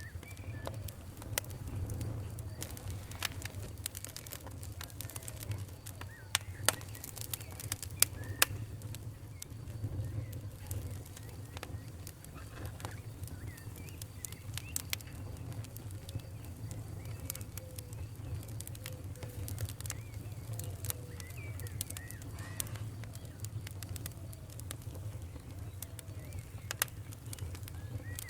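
Wood fire in a fireplace crackling, with frequent sharp pops and snaps over a low steady rumble; a few pops stand out louder about six to eight seconds in. Faint, short squeaky whistles sound now and then.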